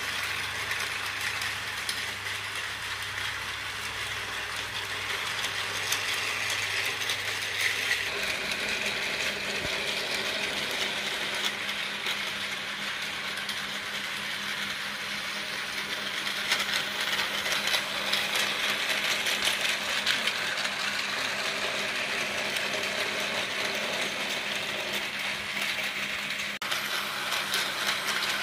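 Battery-powered Tomy toy trains running on plastic track: a steady whir from the small geared motors with a rattling clatter of wheels on the track. A low hum joins about eight seconds in, and the sound grows louder for a while in the middle.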